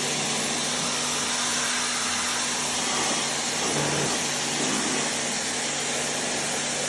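A steady motor whirring with a strong, even hiss and a low hum, unchanging throughout.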